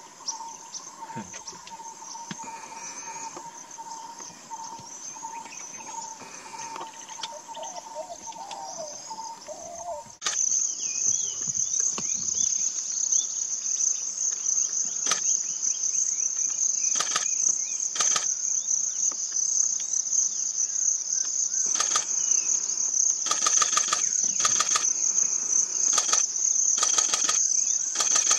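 Insects chirring steadily in grassland scrub, a continuous high-pitched chorus. For the first ten seconds a lower steady tone runs beneath it, then the chorus turns much louder and higher, with scattered short clicks.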